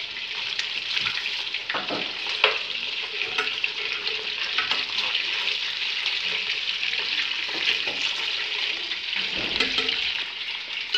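Boiled pork spine sizzling as it fries in a glazed clay pot, searing after the boil, with a metal spoon scraping and knocking against the pot now and then as the pieces are stirred.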